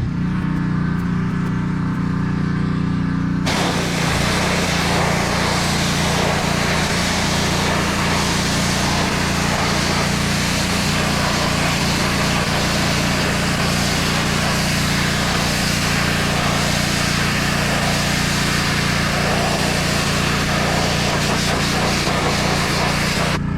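Gas-engine pressure washer running steadily. About three seconds in, the hiss of the high-pressure water jet joins the engine and carries on.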